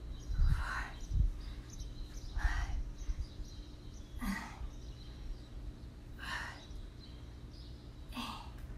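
A woman breathing hard through a set of dumbbell rows on a balance board, a short forceful breath about every two seconds. There are two low thumps in the first second or so, over a faint steady hum.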